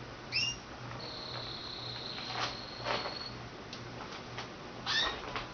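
Canaries calling: a short falling two-note chirp, then one high whistled note held for about two seconds, and another chirp near the end. A few soft clicks among the calls.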